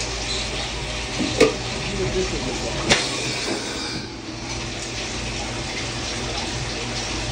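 Ganesh CB-32M Swiss-style CNC lathe running under flood coolant: a steady wash of cutting oil pouring and splashing over the work zone, over a low machine hum. Two sharp clicks come about a second and a half apart near the start.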